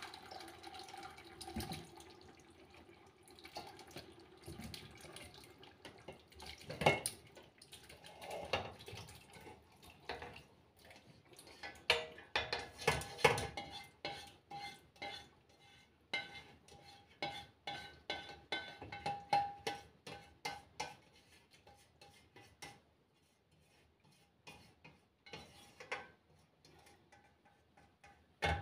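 Stainless steel pots clinking, knocking and scraping as chicken is tipped from one pot into a larger one, in irregular clatters with a few louder knocks.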